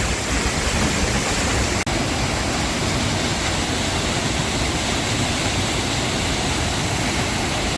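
The Öxarárfoss waterfall: a steady, loud rush of falling water, with a momentary dropout just under two seconds in.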